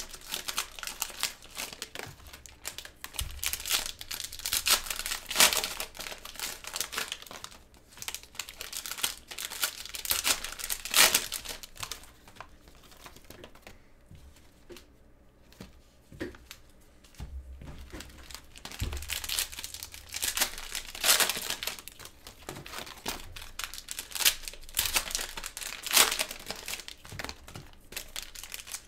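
Cellophane wrappers of trading-card cello packs crinkling and tearing as they are ripped open and handled, in irregular bursts with a quieter stretch about halfway through.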